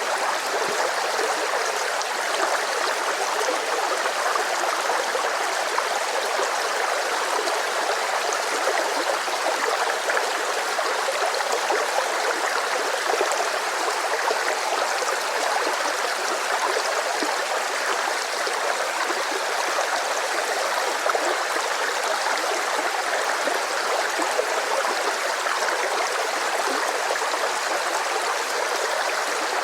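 Rushing river: water flowing and splashing over rocks, a steady, unbroken rush.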